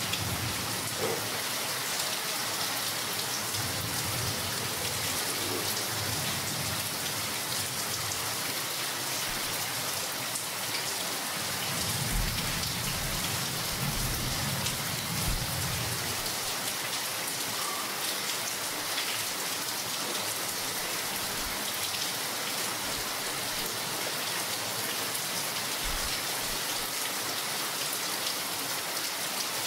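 Continuous rain, an even hiss of falling drops. A low rumble swells briefly about halfway through.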